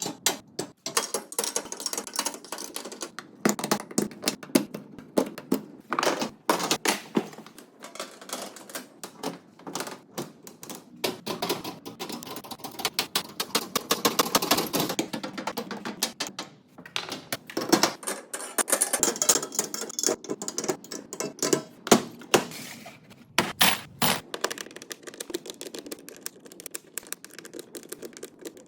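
Rapid, irregular clicking and clattering of hand tools being handled and hung up on a tool wall, dense and unbroken.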